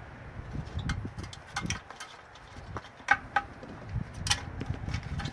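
Scattered light clicks and a few dull knocks of plastic and metal parts being handled while a CRT television is taken apart.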